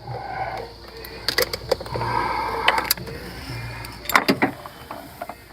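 Scattered small metallic clicks and taps as a wrench and a fuel-line fitting are worked by hand to catch a thread.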